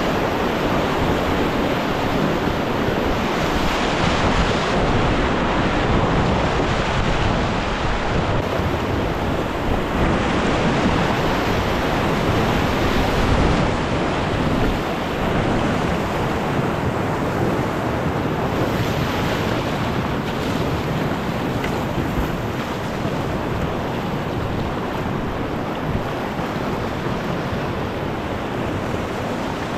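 Whitewater rapids rushing steadily around an open canoe at water level.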